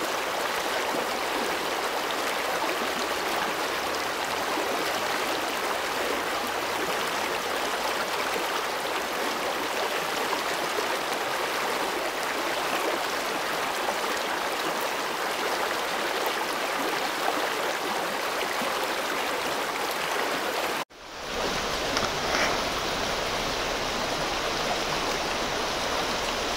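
Small creek rushing steadily over a shallow rocky riffle. About two-thirds of the way through the sound drops out for an instant and returns duller, with more low rumble under the water noise.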